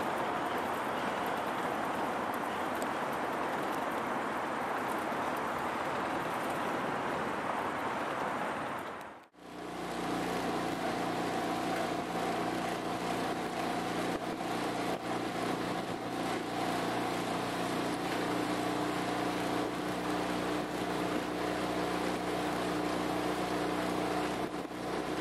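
Outboard motor of a coaching launch under way. At first it is mostly a steady rush of wind and water. After a sudden break about nine seconds in, it is a steady motor hum with several held tones.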